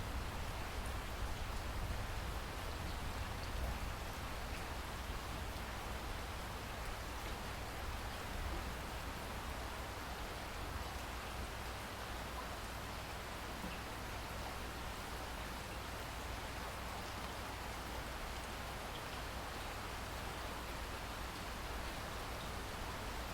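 Steady rain falling, an even hiss with a continuous low rumble underneath, a little louder in the first few seconds.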